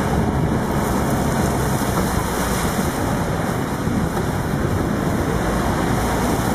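Open safari 4x4 driving through shallow floodwater: the engine runs steadily under a constant rush and splash of water around the wheels.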